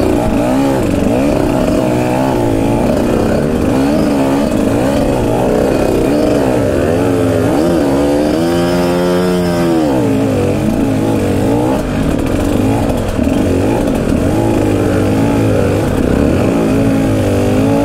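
2018 Husqvarna TE150 two-stroke dirt bike engine heard from on board, revving up and down constantly on a slippery trail, with one longer rev rising and falling back about nine seconds in. It has a new jet block gasket in its Mikuni TMX 38 carburettor, which the owner says makes it run way better, curing its rich, burbly running at low throttle.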